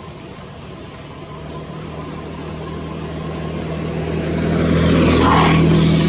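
A passing engine: a steady low hum that grows louder, peaks about five seconds in and starts to fade.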